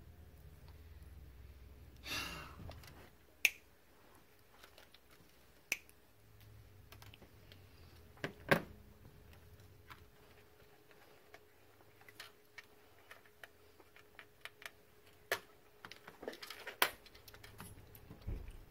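Scattered small clicks and taps of hands handling an electrolytic capacitor and a circuit board, with a short rustle about two seconds in and a faint steady hum underneath.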